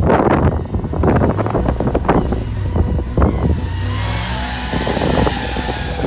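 2019 Dodge Ram 1500 pickup's engine revving as the truck accelerates away through snow, with gusts of wind buffeting the microphone during the first few seconds.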